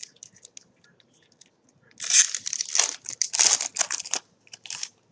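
Trading-card pack wrapper being torn open and crinkled by hand: a few light ticks, then about three seconds of loud, high-pitched crinkling from about two seconds in.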